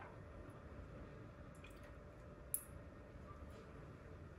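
Near silence: faint steady room tone with one soft click about two and a half seconds in.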